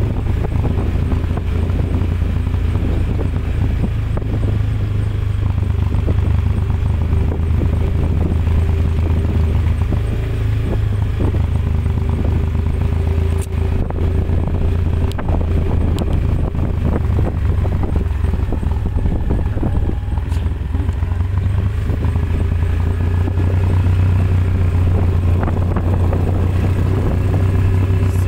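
The engine of a moving road vehicle running steadily, heard from on board as an even low drone with road noise and a few light rattles.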